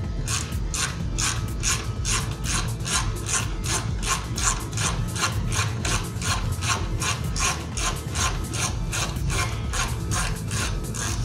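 Ratchet wrench clicking steadily, about four clicks a second, as it is swung back and forth to turn a bolt.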